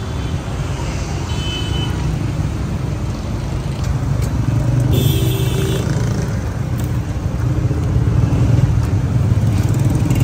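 Busy street traffic: a continuous low rumble of motor vehicles running and passing, growing somewhat louder about halfway through and again near the end. A short high-pitched tone sounds about five seconds in.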